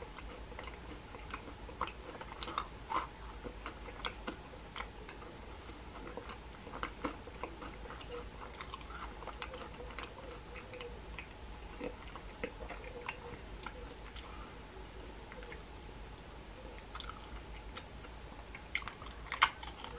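Quiet mouth sounds of chewing macaron: irregular small clicks and crackles, with a sharper click near the end, over a steady low electrical hum.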